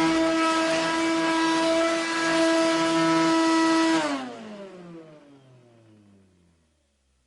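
Vacuum cleaner (hoover) running with a steady motor whine and rushing air. About four seconds in it is switched off, and the whine falls in pitch as the motor spins down, fading out over about three seconds.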